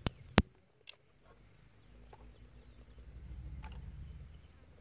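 Two sharp clicks in the first half-second, then faint ticks as dry twigs are laid over a small flame on a honeycomb coal briquette, with a low rumble of wind on the microphone building after a couple of seconds.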